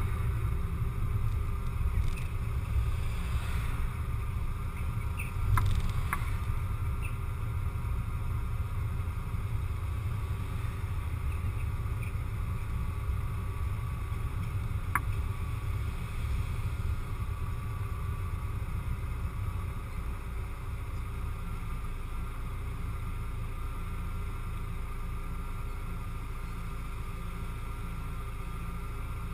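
Car driving noise picked up by an action camera mounted on the car: a low rumble of engine, tyres and wind, with a few brief clicks. It settles to a steadier, slightly quieter rumble in the second half as the car comes to a stop in traffic.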